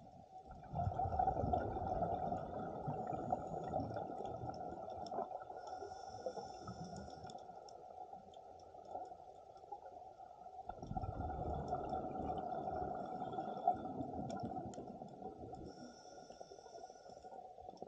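Scuba regulator heard underwater: the diver's exhaled bubbles rumble in two long bursts about ten seconds apart, each followed by a short hiss of inhalation through the regulator.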